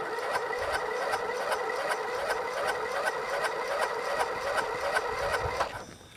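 Briggs & Stratton 13.5 hp single-cylinder flathead engine being turned over by its electric starter. It cranks slowly, with a regular pulse from each compression stroke, and does not fire. It stops abruptly about five and a half seconds in.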